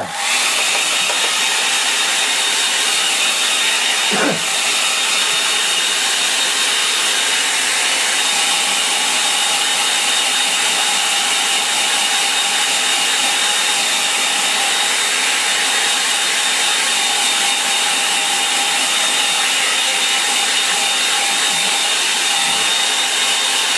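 Handheld electric hair dryer blowing loudly and steadily, with a faint high whine over the rush of air. It is drying wet watercolour paint on paper.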